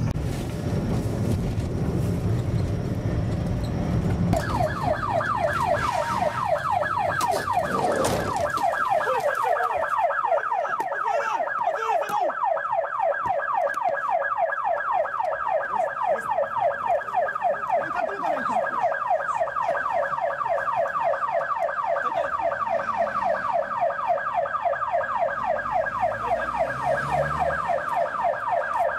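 An electronic siren in a fast yelp, its pitch sweeping over and over several times a second, starting about four seconds in. Before it, the low rumble of a car driving, and near eight seconds a single loud knock.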